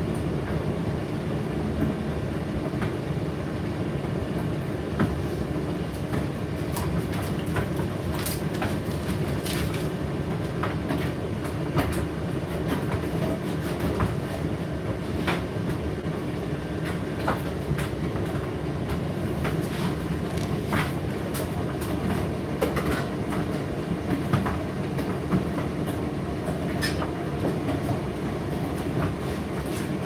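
Indesit IDC8T3 condenser tumble dryer running mid-cycle: a steady motor hum and drum rumble, with irregular light clicks and taps as the load tumbles.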